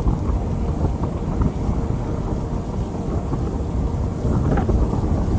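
Rainstorm ambience: a deep, steady rumble with rain noise over it.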